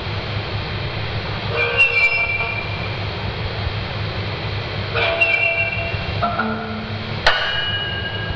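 Dark ambient music: a steady hissing drone with a low hum. Clusters of held, ringing tones come in about two seconds in and again about five seconds in, and a sharp hit with ringing tones follows about seven seconds in.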